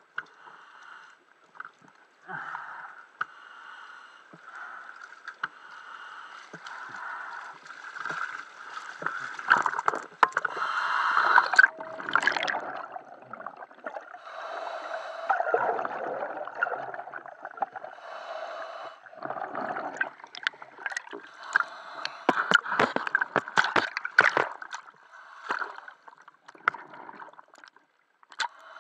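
Underwater bubbling and gurgling from a scuba diver's exhaled breath, swelling in surges every few seconds, with scattered sharp knocks.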